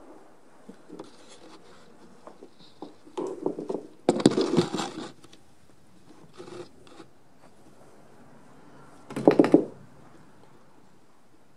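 Short bursts of scraping and rustling, the loudest about four seconds in and another near nine seconds: a cat shifting and pawing on a hardwood floor among cables and small balls.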